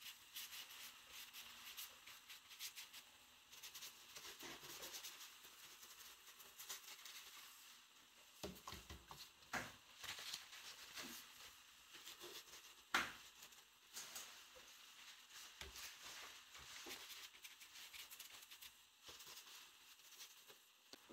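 Faint scratching of a bristle brush working paint onto watercolour paper, with a few soft knocks, the loudest about 13 seconds in.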